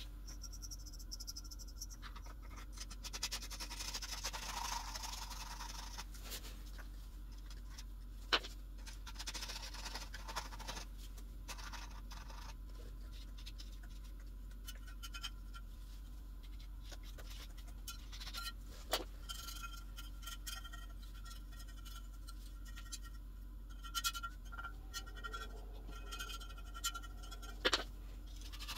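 Faint scratching and scraping as old surround residue is worked off the rim of a speaker woofer's frame by hand, with a few sharp clicks.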